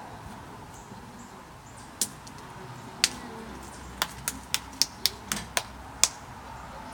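A series of sharp clicks: a single one about two seconds in, another a second later, then a quick run of about eight at roughly four a second.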